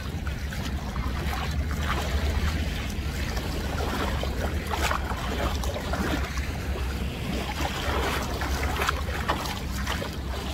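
Wind rumbling on the microphone over small waves lapping at the shore: a steady low rumble with faint splashes.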